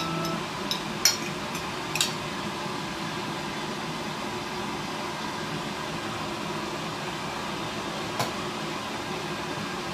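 A few sharp clinks of a metal fork against a ceramic bowl of spaghetti, the loudest about one and two seconds in and another near the end, over a steady hiss.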